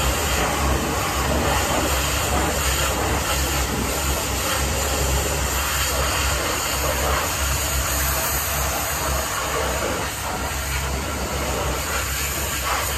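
Hot pressure washer spraying a jet onto a tractor: a steady hiss over a constant low pump hum.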